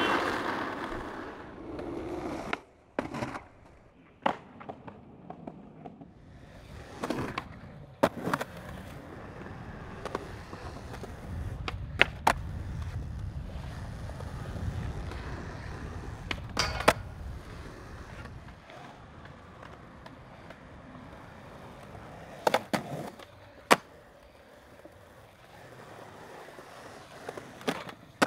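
Skateboard wheels rolling on smooth concrete with a low rumble, broken by a dozen or so sharp clacks of the board popping and landing. It opens with a rush of road noise that fades out within the first couple of seconds.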